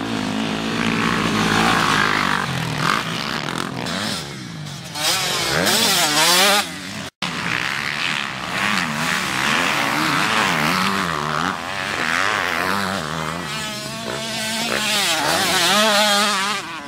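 Sport quad's engine revving hard on a dirt track, the pitch climbing and falling repeatedly with the throttle. After a brief dropout about seven seconds in, a motocross bike's engine revs up and down the same way as it rides past.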